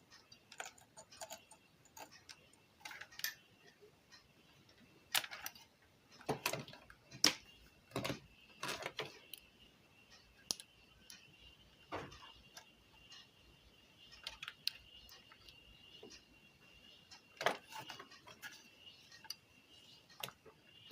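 Irregular clicks and knocks of a Kenwood car stereo head unit and its wiring being handled and hooked up to a power supply, with a faint steady high-pitched tone underneath.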